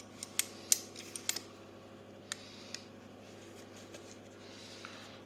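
Metal ratcheting combination wrenches being handled: scattered sharp light clicks and clinks, several close together in the first second and a half, then a few more spread out.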